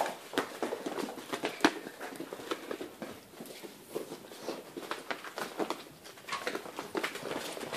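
Great Dane puppies' paws and claws pattering and scrabbling on a hard parquet-pattern floor as they play, a string of irregular clicks and taps with one sharper knock about one and a half seconds in.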